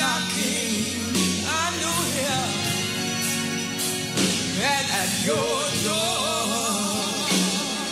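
Gospel song: a singer holding wavering notes with heavy vibrato over a steady band accompaniment.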